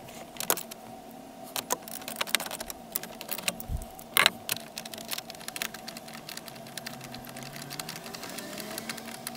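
Socket ratchet clicking in short runs as 7 mm bolts are backed out, with a brief dull thump near the middle.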